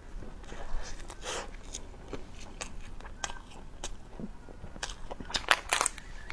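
Person biting and chewing a soft rye bread sandwich, with scattered small wet mouth clicks and a denser run of crisp clicks near the end.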